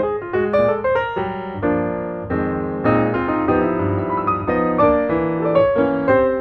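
Background piano music: quick melodic notes, then longer held chords.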